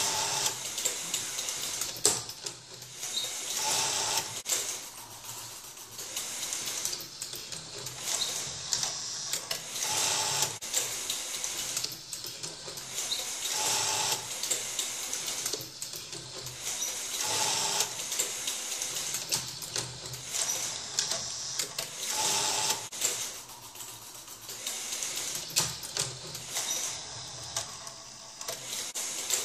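Homemade mechanical Turing machine running: its small motors step the pinned disc tape round and work the read/write head on the metal pins. It makes a whirring and clicking that swells about every three seconds, one cycle per step of the program.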